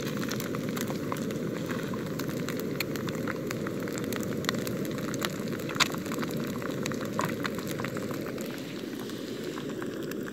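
Bacon slices and an egg sizzling in a frying pan on a gas camping stove: a steady low rush of frying with many scattered crackles and pops of hot fat.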